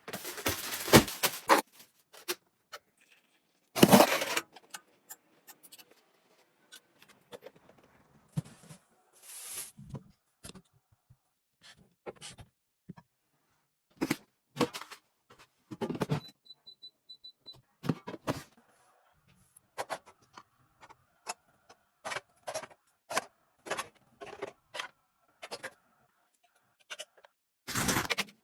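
Objects being handled: scattered clicks, taps and knocks, with a short run of high beeps near the middle.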